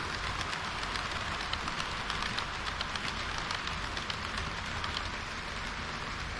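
HO-scale model train running on its track: a steady hiss of wheels on rail with small irregular clicks, several a second.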